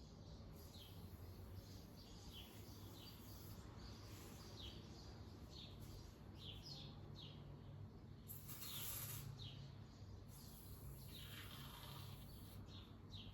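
Faint birdsong: many short, high chirps repeating throughout, over a quiet background. A brief faint hiss comes about eight seconds in, and a weaker, longer one a couple of seconds later.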